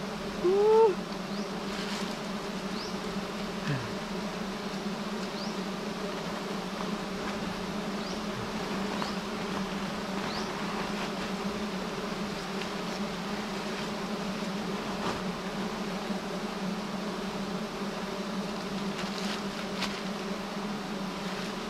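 Swarm of giant honeybees buzzing in a steady low drone, the colony stirred up by the honey harvest at its nest. A short, loud voice-like sound rises and falls about half a second in.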